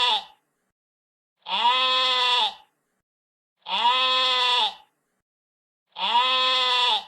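Sheep bleating: the end of one bleat, then three more of about a second each, evenly spaced about two seconds apart with silence between. Each bleat is one wavering pitched call that arches slightly and drops at its end.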